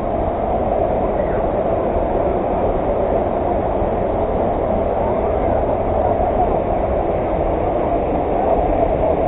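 Steady roar of a waterfall, water pouring and splashing without a break.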